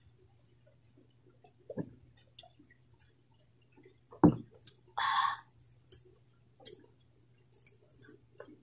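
Close-miked mouth sounds of a person drinking from a glass mug: small wet clicks and sips, a thud about four seconds in as the mug comes down on the wooden board, then a short breathy exhale.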